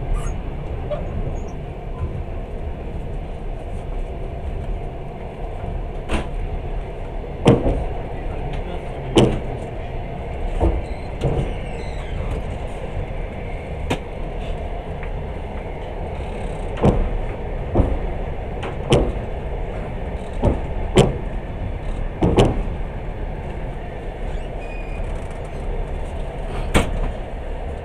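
Passenger train running, heard from inside the carriage: a steady low rumble with sharp clicks of the wheels over rail joints. The clicks begin about six seconds in and come every second or two, sometimes in pairs.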